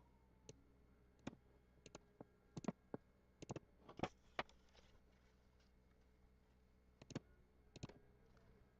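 Near silence in a small room, broken by a scattered series of faint, short clicks and taps, bunched in the first few seconds and again twice near the end.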